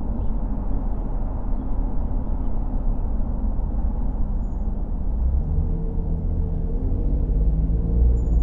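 Road noise of a car driving: a steady low rumble of tyres and engine, with an engine note coming in about halfway through and rising slightly.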